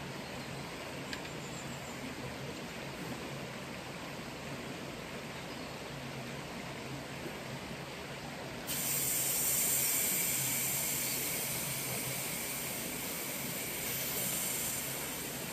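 A steady background hiss, then about nine seconds in a sprayer starts spraying, a sudden high hiss that holds for about six seconds and eases off near the end: mite treatment being sprayed into the chicken coop.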